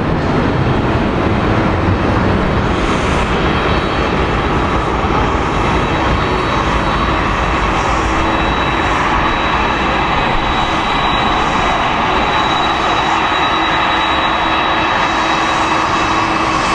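Boeing 777-300 airliner's jet engines running with a steady roar and a high whine.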